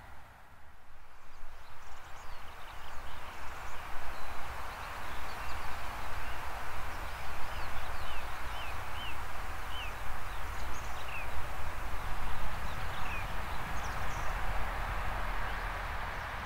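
Distant passenger train running along an electrified line, heard as a steady rumble and rolling noise across open fields, with short bird chirps in the middle.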